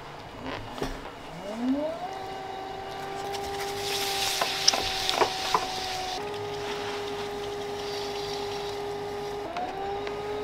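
Electric potter's wheel motor spinning up with a rising whine about a second and a half in, then running at a steady pitched hum. Its pitch dips briefly and climbs back near the end as the speed is changed. A short hiss with a few light clicks in the middle.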